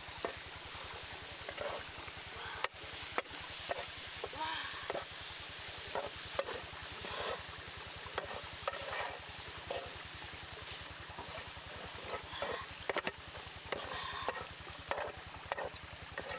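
Wooden spatula scraping and stirring chicken pieces and eggs in a cast-iron grill pan, in short irregular strokes over a steady sizzle.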